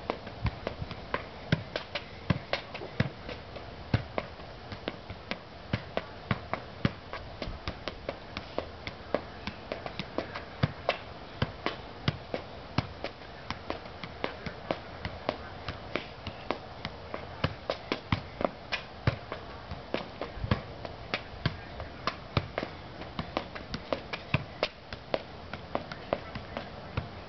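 Soccer ball being juggled: a steady run of sharp taps, about two to three a second, as the ball is kept up off the feet without dropping.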